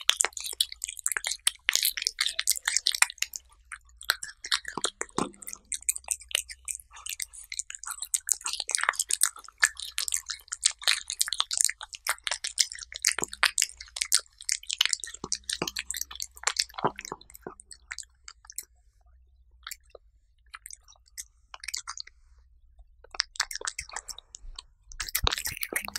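A cat eating soft chicken-breast purée right at the microphone: rapid wet licking and chewing clicks, pausing for a few seconds about three-quarters through, then licking again.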